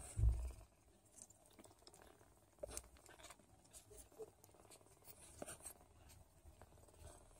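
Newborn Don Sphynx kittens suckling at their mother's teats: faint, scattered small wet clicks and smacks. A short low thump comes about a quarter second in.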